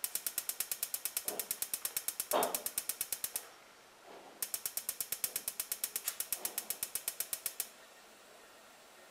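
Electronic spark igniter of a Coleman NorthStar gasoline lantern held down and sparking at about six or seven clicks a second, in two runs with a pause of about a second between. This is the igniter firing while the gas valve is opened little by little, before the mantle catches. A short softer noise comes about two and a half seconds in.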